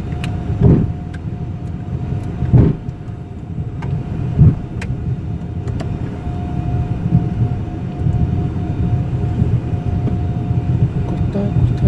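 Cockpit noise of a Hawker 850XP business jet taxiing: a steady rumble of its Honeywell TFE731 turbofans and rolling gear. Three heavy thumps come about two seconds apart in the first half, and a steady tone holds through the second half.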